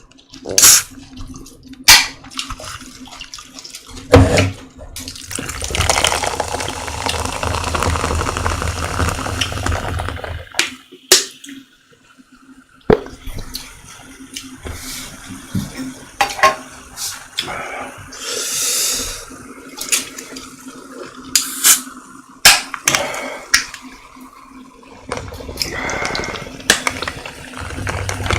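Cola poured into a cup, a few seconds of gurgling fizzy pouring, with sharp clicks of the bottle and cup between pours.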